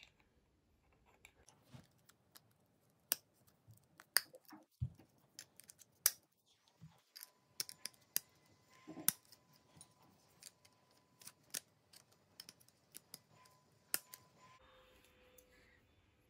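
Green plastic GraviTrax Spiral track pieces being handled and pressed together on their white hexagonal base: a run of sharp, irregular plastic clicks and snaps.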